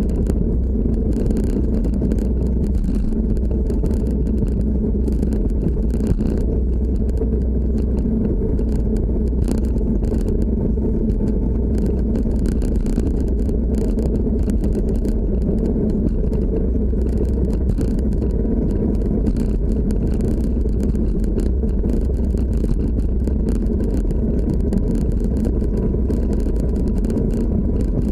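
Evolve Carbon electric skateboard rolling along a paved path: a steady low rumble of the wheels and drive, picked up by a camera mounted on the deck, with a faint steady hum above it.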